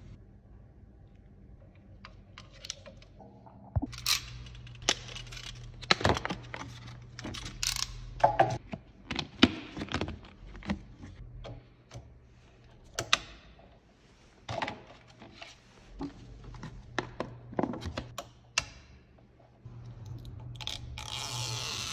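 PC parts being handled during assembly: an irregular series of sharp plastic and metal clicks, knocks and rattles.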